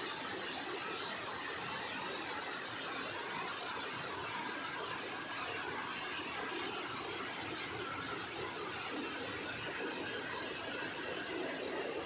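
Steady rushing of a waterfall and of water cascading over boulders in the stream below it.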